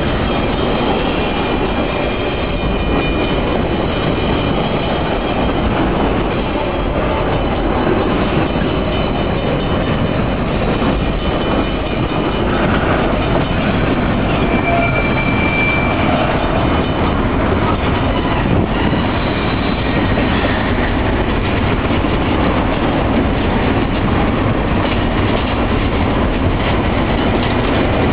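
BNSF double-stack container train rolling past: a steady rumble of steel wheels on rail with clickety-clack, and now and then a faint high wheel squeal.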